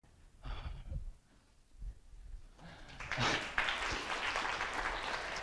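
Audience applauding in a hall, the clapping rising from about two and a half seconds in and continuing steadily, after a few soft low thumps near the start.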